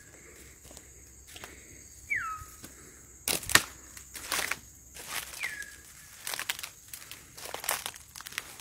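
Palm fronds and dry leaves crackling and rustling in irregular bursts, the loudest about three and a half seconds in. A short falling whistle sounds twice, about two and five seconds in.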